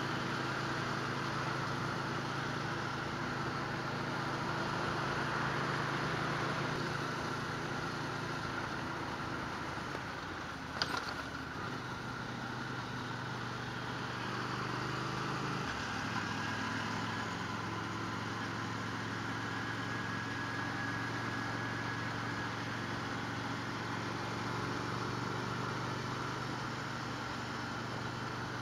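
Motorcycle engine running steadily while riding, heard over a wide rush of wind noise from the onboard camera. The engine note shifts pitch slightly twice partway through, and there is one sharp click about eleven seconds in.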